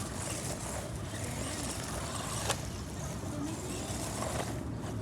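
Small RC car driving, its electric motor and tyres making a steady, noisy run, with one sharp click about two and a half seconds in.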